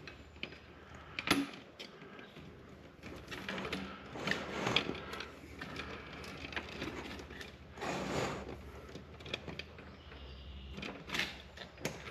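Electrical wires rustling and scraping as they are handled and pulled through metal conduit into a steel junction box. A sharp click comes about a second in, then several bouts of crackly rustling with fine clicks.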